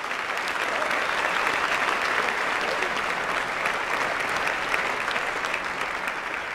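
A keynote audience applauding steadily, the clapping easing off a little toward the end.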